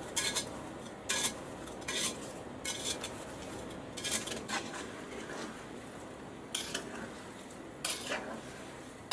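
Metal spoon scraping and clinking against the sides of an aluminium kazan as sugar is stirred into strawberries: short strokes about once a second, with a pause of about two seconds midway.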